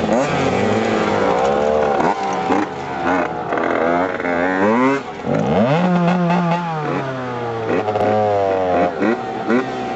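HM CRE dirt bike engine running under way, its revs rising and falling again and again, with a longer, slowly falling note a little past halfway. The owner says the bike is half falling apart and makes lots of strange noises.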